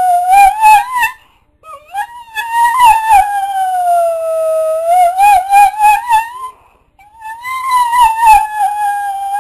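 Dog howling: long drawn-out howls that dip in pitch and then waver up and down near their ends, one after another with two short breaks for breath.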